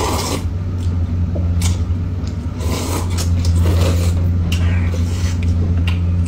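People slurping and chewing hot and sour sweet potato noodles (suanlafen) from paper cups: several short wet slurps, over a steady low hum.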